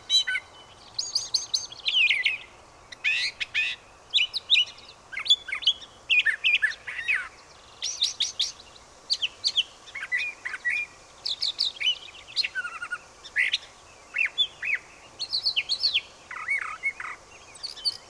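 Brown thrasher singing its mimicking song: a long run of short, varied phrases with brief pauses between them. It is an unpaired male singing to attract a mate.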